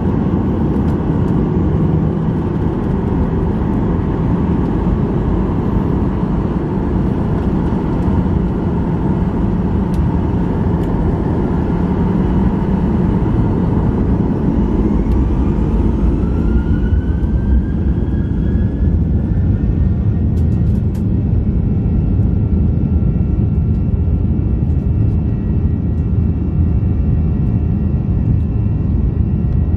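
A Boeing 737-800's CFM56-7B turbofan engines heard from inside the cabin, spooling up for takeoff. A rising whine climbs from about halfway through and then holds as a steady high whine over a loud rumble while the jet accelerates down the runway.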